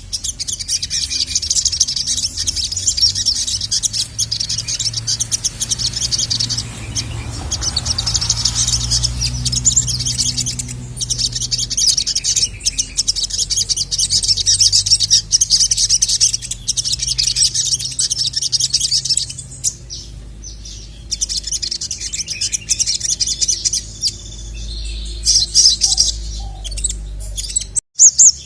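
Sogon (sogok ontong, the ruby-cheeked sunbird) singing a rapid, high-pitched chattering song with only a few short pauses, over a faint low hum.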